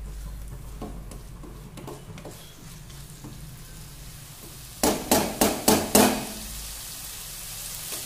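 Wooden spatula stirring and scraping sliced onions and green chillies in a frying pan, with a faint sizzle. About five seconds in, a utensil is tapped five times, quickly and loudly, against the pan.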